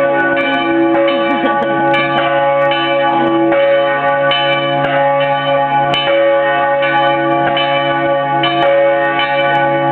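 Church bells ringing in a continuous loud peal, a fresh stroke landing about every two-thirds of a second over the steady hum of the bells still sounding.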